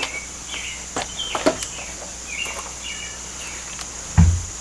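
Steady outdoor insect drone with short bird chirps over it, a few light clicks, and one dull thump about four seconds in.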